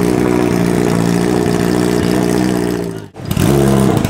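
Honda CBR1000RR inline-four motorcycle engine running steadily near idle on its first start after a rebuild with handmade piston rings. The sound breaks off sharply for a moment about three seconds in, then the engine is heard running again.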